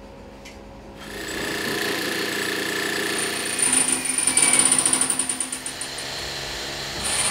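Angle grinder cutting steel, starting about a second in with a steady high whine, loudest in the middle.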